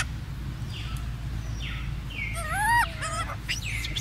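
Baby macaques squealing as they wrestle: a few short falling squeaks, then a louder, wavering high squeal about two and a half seconds in, and more short cries near the end.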